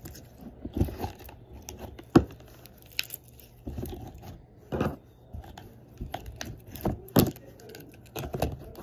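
Blue slime packed with foam beads being squished and pulled by hand: irregular crackling and squishing, with a louder sharp pop or tap every second or so.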